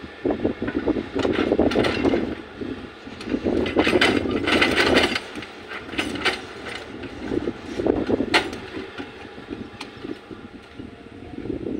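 Volvo excavator digging: the engine runs under load, with irregular clanks and scrapes as the bucket works into rocky soil, the loudest about four to five seconds in and again about eight seconds in.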